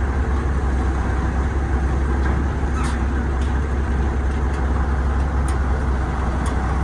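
Diesel engine of a 7-ton Heli forklift running steadily at idle, a deep low rumble with no change in pitch, while the forklift sits on a flatbed trailer during loading.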